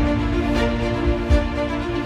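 Background music: held chords over a slow, low beat.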